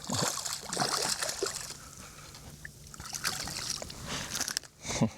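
Water splashing and sloshing beside a kayak as a small hooked redfish is brought in at the surface, in irregular bursts, with a sharper splash near the end.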